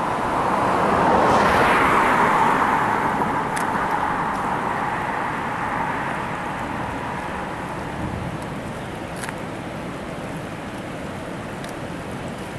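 Creek water rushing steadily over and below a low dam. A louder swell of noise builds in the first second or two and fades back over the next few seconds.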